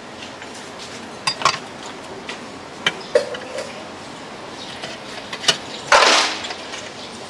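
Kitchen utensils at work: a few sharp knocks and clinks of a knife and utensils against a wooden chopping board and metal pots, with a louder scraping clatter about six seconds in.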